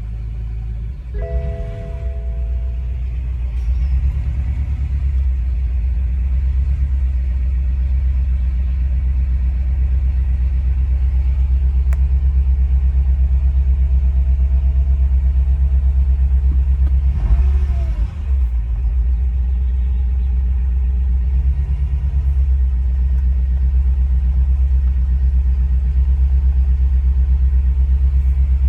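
2014 BMW M5's twin-turbo V8 running at idle with a steady low rumble and a fine, even pulsing, the engine that has a misfire.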